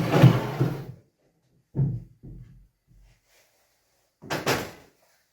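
Wooden bumps and scraping as a plywood shelf is handled: a longer scrape-and-knock at the start, a shorter bump about two seconds in, and another near the end.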